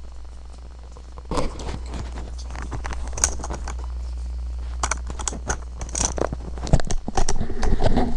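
Headset microphone being handled and readjusted: irregular rustling, scraping and knocks right on the mic, starting about a second in and growing busier toward the end, over a low steady electrical hum.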